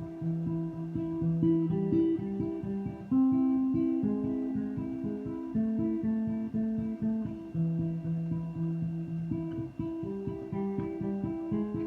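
Acoustic guitar playing an instrumental passage: quick, steadily picked notes over longer held bass notes.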